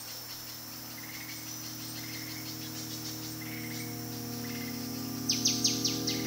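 Insects chirping in a tropical forest ambience over a steady low hum. Near the end a louder run of sharp, falling chirps begins, about four a second.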